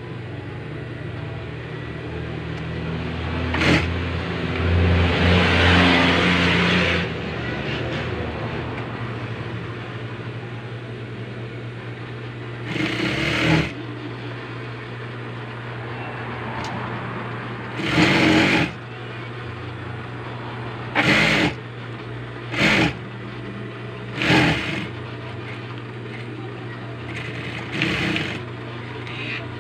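Juki industrial sewing machine with its motor humming steadily, broken by short runs of stitching that start and stop: one longer run of a few seconds near the start, then about six brief bursts.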